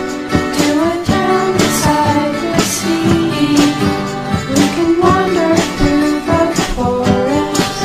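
Song: a woman singing a gentle melody over plucked guitar accompaniment.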